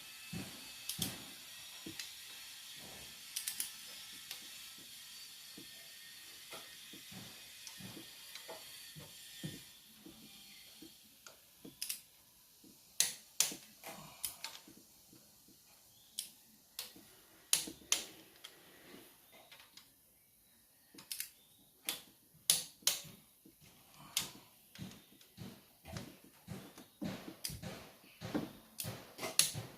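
Hand tools working on a Mitsubishi 4D56 diesel engine during reassembly: sharp, irregular metallic clicks and clinks, thicker in the second half. A steady hiss sits under the first third and then stops.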